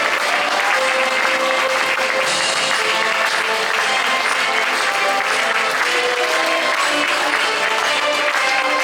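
Music playing with a crowd applauding over it, steady throughout.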